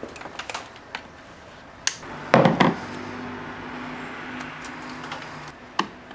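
Scattered clicks and clanks of tools and parts being handled during disassembly under a truck's hood, with one louder clatter about two and a half seconds in.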